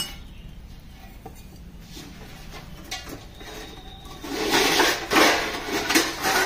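Hands rubbing and scraping inside a steel bowl, a rough rustling noise that runs for about two seconds near the end with several louder peaks, after a few light knocks earlier.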